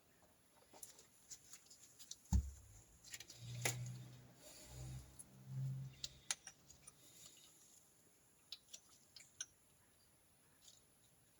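Small metal parts of a Triumph Trident T160 oil pump clicking and tapping as the bottom plate is fitted back on. There is one sharp knock a little over two seconds in, low muffled bumps in the middle, then sparse faint clicks.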